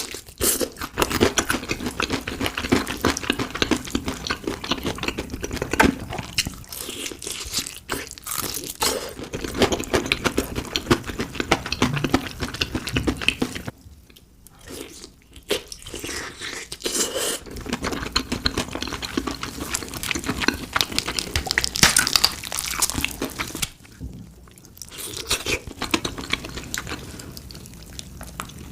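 Close-up crunching and chewing of crispy fried chicken batter, with bursts of crackling bites broken by two short quieter pauses.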